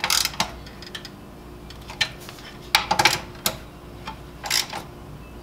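Hands working in a car's engine bay: scattered sharp clicks and knocks as parts are handled and fitted, about eight of them spread irregularly, over a low steady hum.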